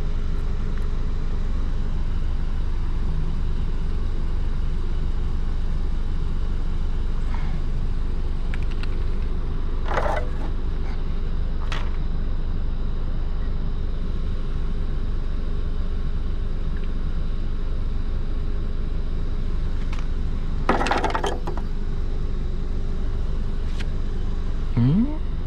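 Plastic RC car body shell being handled and fitted, giving a few short clatters and rustles, the longest about two-thirds of the way in, over a steady low rumble with a faint hum.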